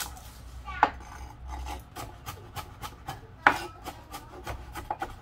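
Cleaver chopping spring onions and then garlic and shallots on a wooden cutting board: a run of irregular knife strikes on the wood, with a few louder chops.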